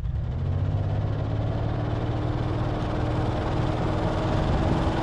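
Toyota 4Runner engine running steadily under throttle, its pitch creeping slowly upward, as the truck tries to drive out of deep snow where it is stuck.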